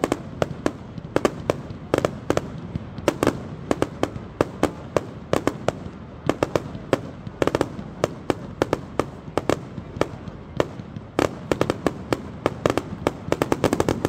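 Fireworks display going off: a fast, irregular run of bangs and pops, several a second, coming thicker near the end.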